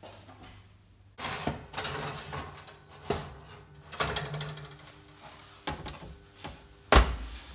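Oven door pulled open, then a metal baking tray scraping and knocking as it slides onto the oven shelf. The door shuts with a heavy thump near the end.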